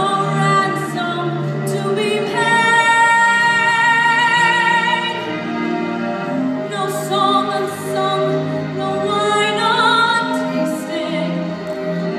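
A girl singing solo into a microphone, holding long notes with vibrato, the longest about two to five seconds in.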